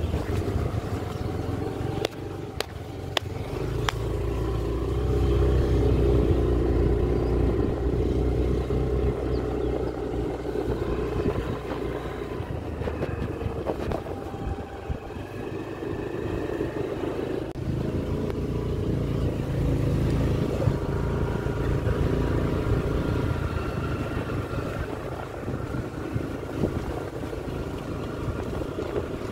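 Motor scooter engine running steadily while it is ridden along a street, its pitch wavering a little with speed.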